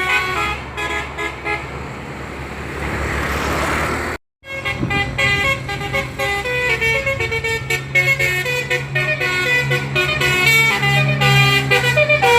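Telolet multi-tone musical horn playing a rapid stepping melody of bright horn notes, with a low engine hum underneath. The sound breaks off to silence for about half a second around four seconds in, then the horn tune carries on.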